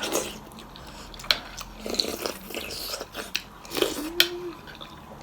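Close-up eating sounds: a person chewing and biting food, with wet mouth smacks and a few sharp crunchy clicks. A short closed-mouth hum comes about four seconds in.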